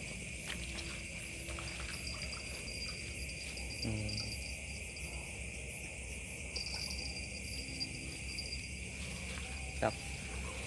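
Night chorus of crickets and other insects, a steady high-pitched trill, with a brief low sound about four seconds in and a single knock near the end.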